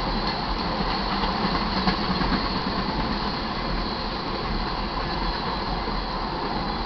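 Freight-train tank cars rolling steadily past, a continuous noise of steel wheels running on the rails.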